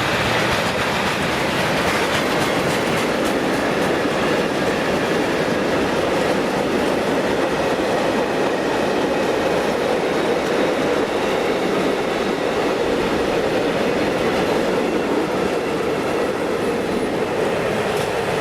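Freight train rolling past on a grade: a steady rumble with the clatter of wagon wheels on the rails.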